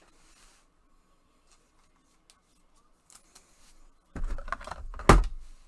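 Trading cards and clear plastic card holders handled by gloved hands: faint light ticks and rustles, then about four seconds in a louder scraping plastic rustle with one sharp snap near the end.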